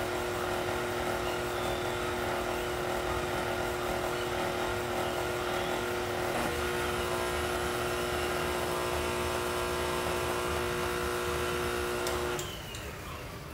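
Stand mixer motor running steadily on its lowest stir speed, stirring dry cake ingredients in a stainless steel bowl, with an even motor whine; it switches off about twelve seconds in.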